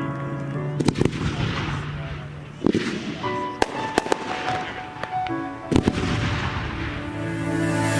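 Fireworks bursting with sharp bangs, a few in quick succession around the middle, over music playing.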